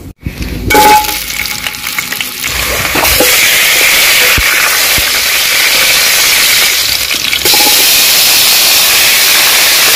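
A few light clinks, then from about three seconds in, sliced onions sizzling in hot oil in a metal pot, stirred with a wooden spoon. The sizzling gets louder about seven and a half seconds in, as chopped tomatoes, carrots and green peppers go into the pot.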